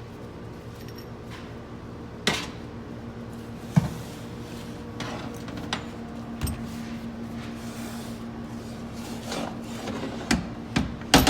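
Scattered metallic knocks and clunks of hand tools and transmission parts being handled and set down during a teardown, about five over the stretch, the loudest near the end, over a steady low hum.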